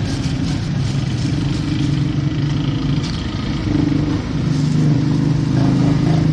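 A motor vehicle engine running close by, with a low hum that shifts in pitch and grows louder about four seconds in, over general street noise.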